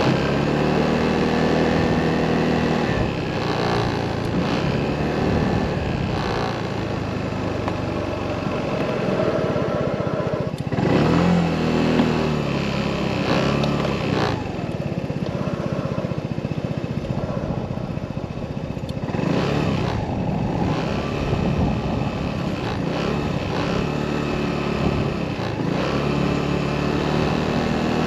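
Motorcycle engine running under way, heard from the bike itself, its note rising and falling several times as the rider accelerates and eases off.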